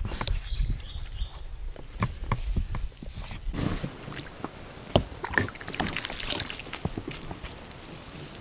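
Water splashing and streaming as a mesh landing net is scooped through lake water beside an inflatable boat and lifted out dripping, with scattered knocks of handling and a sharp knock about five seconds in.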